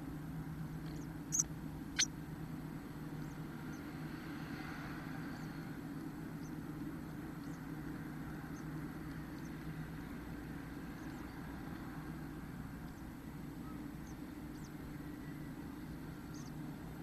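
Steady low electrical hum on the nest-box camera's microphone, with two sharp taps about a second and a half and two seconds in as the chickadee moves against the wooden box. Faint short high peeps come now and then.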